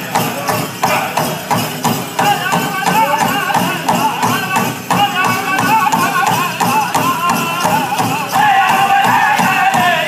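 Pow wow drum group playing a contest song for the men's chicken dance: a steady beat on the big drum under high-pitched group singing, the singing strongest from about two seconds in.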